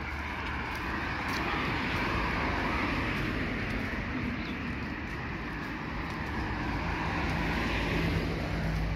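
City street traffic: a motor vehicle passes close, its noise swelling and then easing off over several seconds. A steady low engine hum grows stronger near the end.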